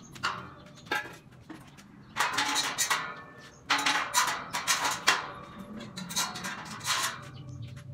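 Steel tube ladder being fitted onto a steel tubular bunk-bed frame: metal clanking and scraping in three stretches of about a second each, with a few sharp knocks between them.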